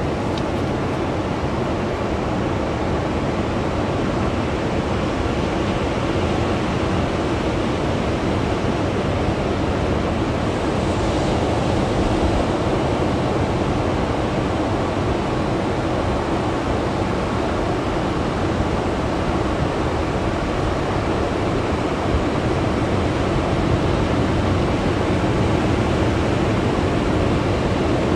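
Ocean surf breaking and washing up a sandy beach: a continuous, steady rush of waves.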